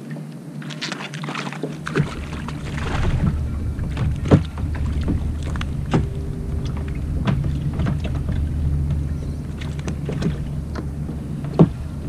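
Steady low rumble of wind and water around a fishing kayak, with scattered sharp knocks and clicks from a fishing rod and reel being worked. The loudest knocks come about four seconds in and near the end.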